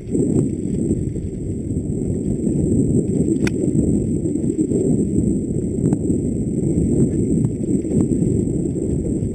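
Mountain bike descending a dirt forest trail at speed: a heavy, steady rumble of wind buffeting and tyre noise on the camera microphone. Sharp knocks and rattles come from the bike over bumps, the sharpest about three and a half seconds in, with lighter ones later.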